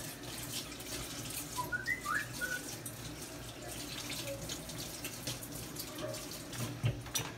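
Water running from a kitchen tap as a whisk is rinsed under it, with scattered light clinks and splashes. A few short high chirps about two seconds in.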